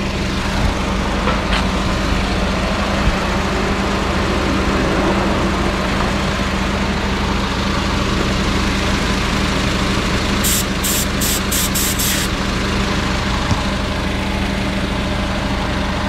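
The Mazda AZ-Wagon's (MJ22S) small three-cylinder engine idles steadily with the air conditioning running while its refrigerant is being charged. About ten seconds in comes a quick run of about six short, high-pitched hisses.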